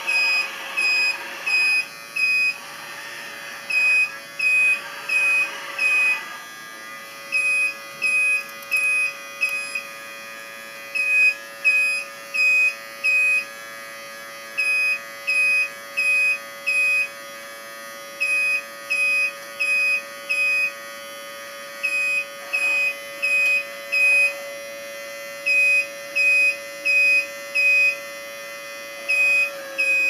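Electronic warning beeper on a radio-controlled construction model, beeping about one and a half times a second in runs with short gaps. Under it runs a steady electric whine that gets louder about seven seconds in.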